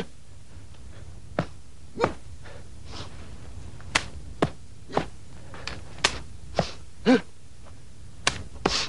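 Solo Baji quan practice: sharp slaps and thuds of hand strikes and stamps land roughly once a second. Short forceful grunted exhalations sound about two seconds in and again near seven seconds, as power is released on a strike.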